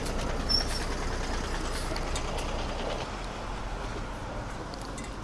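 A motor vehicle running: a steady rushing noise that slowly fades.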